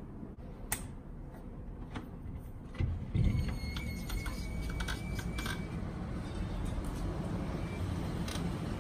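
Outdoor city ambience heard from a balcony: a steady low rumble that grows a little louder about three seconds in, a few sharp clicks, and a brief high chirping soon after.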